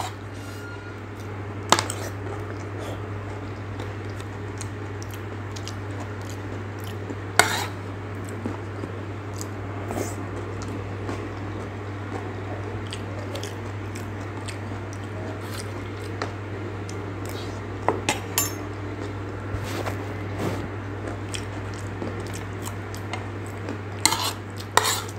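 A metal spoon clinks and scrapes against a ceramic plate a few times, with a cluster of clinks near the end as it scoops. Between the clinks there is close-up chewing of crunchy aalu nimki, over a steady low hum.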